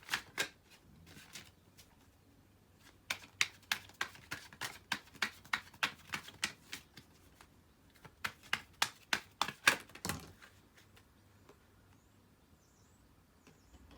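A tarot deck being shuffled by hand: runs of quick papery card clicks, about four or five a second, in two main bursts, stopping about ten seconds in.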